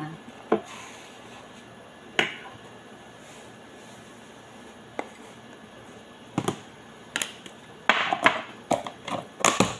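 Sharp clicks and knocks of a drinking glass and a plastic container being handled over a plastic mixing bowl while semolina is measured out: a few scattered knocks, then a quick cluster of them near the end as the glass is set down.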